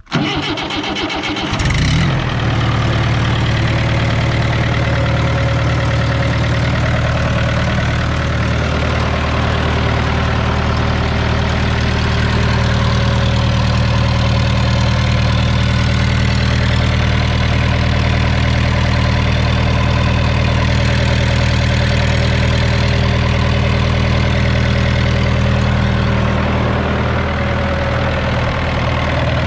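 Old Fiat crawler tractor's four-cylinder diesel engine cranked on the starter for about a second and a half, catching after glow-plug preheating on a cold start after standing nearly two years, then settling into a steady idle.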